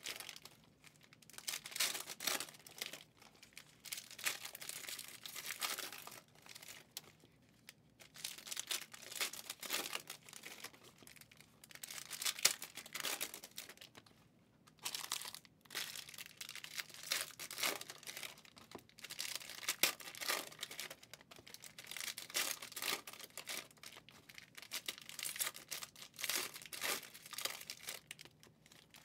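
Foil wrappers of 2023 Panini Prizm NFL Hobby packs crinkling and tearing as the packs are ripped open by hand. The crackle comes in irregular spells, with a couple of short pauses.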